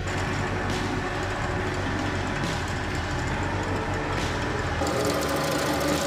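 Drill press running and boring into a small plywood piece with a drill bit, a steady machine sound whose character shifts about five seconds in.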